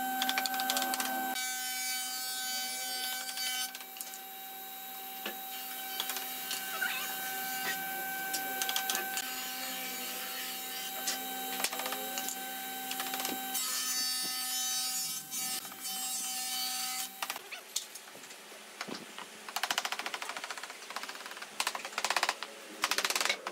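A steady machine hum with a few fixed pitches, stopping about seventeen seconds in, under light knocks of wooden slats being set into a frame. After it stops, a wooden mallet knocks quickly on the slats and frame of a wooden daybed, in runs of rapid taps near the end.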